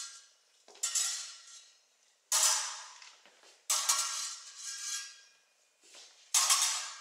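Thin steel sword blades clashing in a stage-combat duel: four sharp metallic strikes, each ringing out and fading over about a second, the last one a quick double hit.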